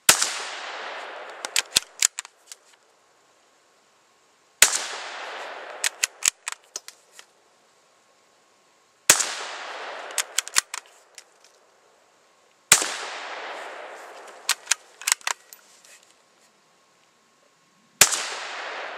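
Savage 93R17 bolt-action rifle in .17 HMR firing five shots, a few seconds apart. Each sharp crack dies away in an echo over a second or so and is followed by a quick run of metallic clicks as the bolt is worked to chamber the next round.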